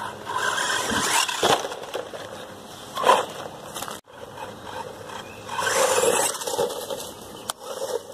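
Small 1/12-scale two-wheel-drive electric RC truck running over dirt: its tyres scrape and crunch on the ground, with a few sharp knocks as it hits and lands off a ramp.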